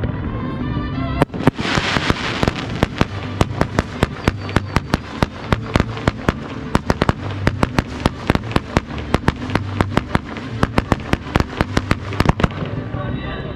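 Fireworks display firing a rapid barrage of sharp bangs, several a second, with a burst of crackling about two seconds in. Music plays underneath.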